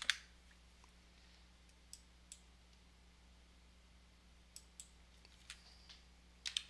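Sparse, isolated clicks of a computer mouse and keyboard, a second or two apart, over a faint steady electrical hum. A quick run of keyboard typing starts near the end.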